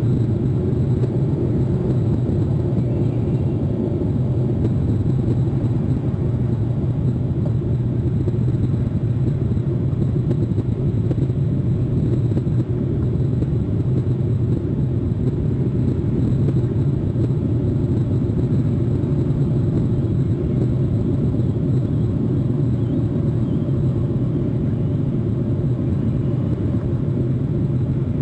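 Steady low rumble that holds at the same level throughout, with no distinct events standing out.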